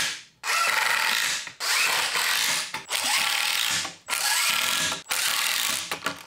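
Cordless impact driver driving pocket-hole screws into a plywood cabinet side, one after another. There are about six bursts of rapid impacting, each about a second long, with short pauses between them.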